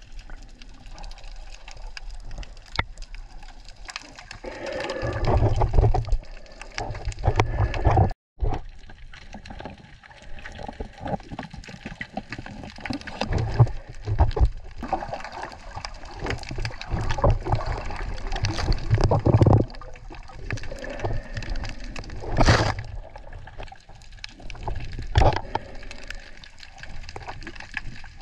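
Water sloshing and gurgling around snorkelers at the surface, with irregular splashes and surges, the loudest about two-thirds and nine-tenths of the way through. The sound cuts out completely for a moment about eight seconds in.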